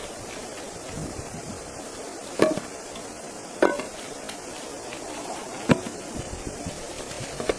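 Four sharp strikes of a tool on wood, spaced one to two seconds apart, the first two with a brief ring, over a steady background hiss.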